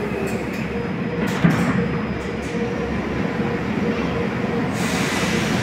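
Moscow metro train standing at the platform with its doors shut, its equipment humming steadily with a constant tone. A clunk comes about a second and a half in, and a hiss of air starts near the end as the train gets ready to pull out.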